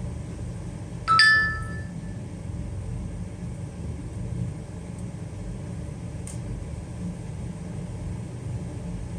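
Steady low hum of a fan or air unit, with one light metallic tap about a second in that rings briefly like a small bell, and a faint tick later.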